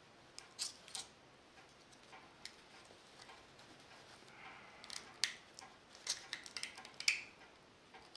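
Faint, scattered metallic clicks and ticks of a small screwdriver and a retaining spring being worked onto the brake shoes of a coaster-brake bicycle hub, with a quick run of clicks about five to seven seconds in.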